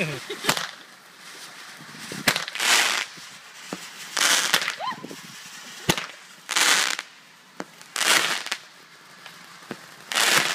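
Consumer fireworks going off: a few sharp pops and about five short hissing bursts, spaced one and a half to two seconds apart, over the steady hiss of spark fountains.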